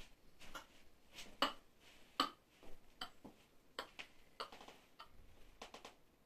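A scattering of light clicks and knocks, irregularly spaced about one every half second, some with a short creak, from a person moving about and shifting his weight on a wooden attic floor.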